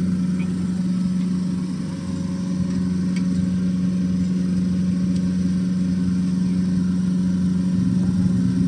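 Boat engine running steadily with a low, even hum; it dips slightly in loudness about two seconds in.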